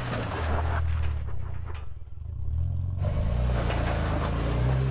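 Jeep Wrangler JK's V6 engine running at low speed while crawling over rocks, its note shifting with the throttle.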